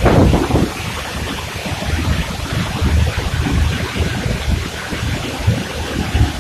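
Steady roar of Noccalula Falls, a tall waterfall plunging over a rock ledge, heard from behind the falling water, with gusts of wind buffeting the microphone, strongest in the first second.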